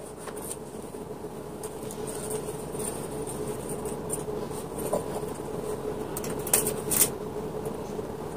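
A few sharp clicks and taps of clear acrylic hamster-cage parts being handled and fitted together, the last two close together, over a steady background hum.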